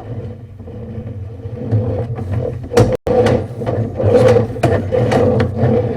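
Camera handling noise: repeated knocks, scrapes and rubbing over a steady low hum, with a brief dropout about halfway through.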